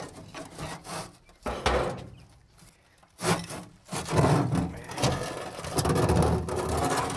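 Flat bar prying and scraping at an old bulkhead's rotted wooden sill on a concrete foundation: rough rasping of wood, a sharp knock about a second and a half in, and a longer run of scraping in the second half.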